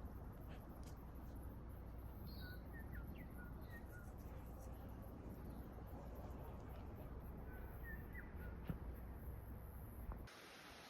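Faint outdoor ambience: a steady low rumble and hiss, with a few small bird chirps about three seconds in and again near eight seconds. The background drops away abruptly just before the end.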